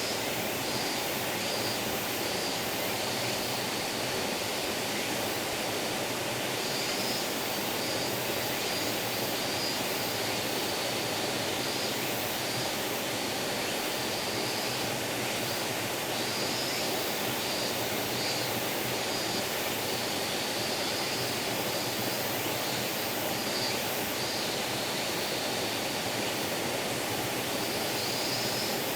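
A small forest stream babbling steadily. Over it runs a high, wavering insect call.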